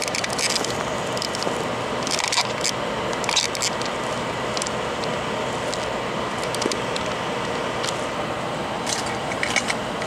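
A steady airy hiss with short bursts of crackling clicks: once just after the start, around two and three and a half seconds in, and again near the end. This is work on soldering a touch FPC connector onto an iPad mini logic board.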